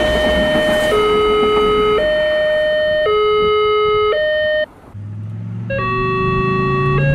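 Railroad crossing alarm sounding an electronic two-tone chime that alternates high and low about once a second, over the rumble of a passing train. The alarm cuts off a little before five seconds in. About a second later a different crossing alarm starts with its own two-tone pattern, over a low hum that rises in pitch.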